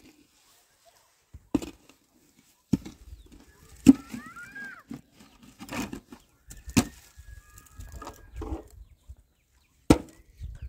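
A metal bucket of wet mortar is tipped out and knocked against a concrete-block wall: about six sharp knocks and thuds with scraping between them, the loudest about four seconds in and near the end. A few short bird chirps are heard about four seconds in.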